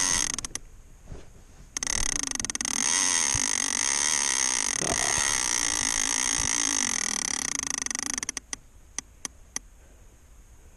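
Shimano Talica 12ii lever-drag reel's ratchet clicker buzzing as line runs off the spool. It stops for about a second near the start, runs again for about six seconds, then slows to a few single clicks and stops.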